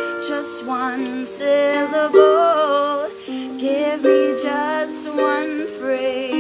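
A woman singing a slow melody with a wavering vibrato, accompanying herself on a harp whose plucked notes ring on underneath.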